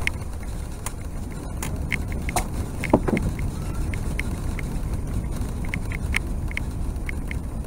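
Airbus A380 on its landing roll, heard from inside the cabin: a steady low rumble with scattered light rattles and clicks, and a thump about three seconds in.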